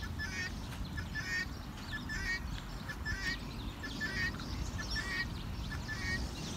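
A small bird singing the same short chirping phrase over and over, about once a second and seven times in all, over a steady low background rumble.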